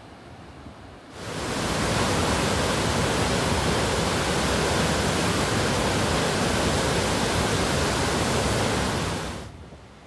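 Steady, loud rush of water pouring over the ice-covered Ithaca Falls. It cuts in suddenly about a second in, after a quieter rush from Buttermilk Falls in flood, and drops off suddenly near the end.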